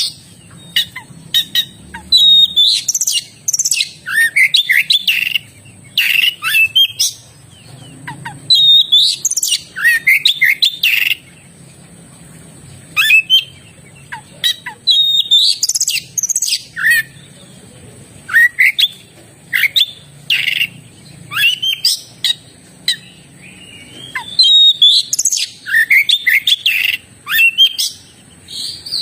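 Oriental magpie-robin (kacer) in full song: phrase after phrase of fast gliding whistles, trills and sharper notes, with short pauses every second or two.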